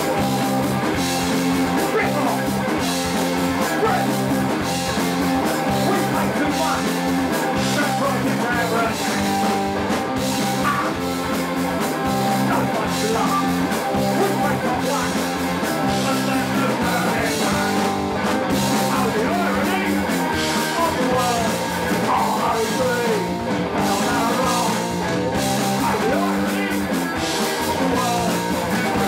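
A punk rock band playing live at full volume, with guitars and drums, the level holding steady.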